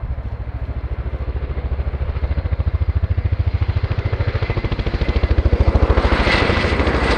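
Boeing Chinook HC.6 tandem-rotor helicopter's rotor blade slap: a rapid, even thudding that grows louder as the aircraft comes closer. A thin high whine joins near the end.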